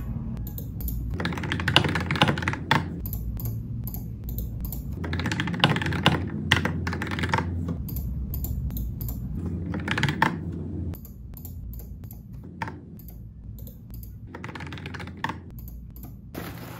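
LOFREE mechanical keyboard being typed on: quick runs of key clicks with short pauses between them, a little quieter from about 11 seconds in.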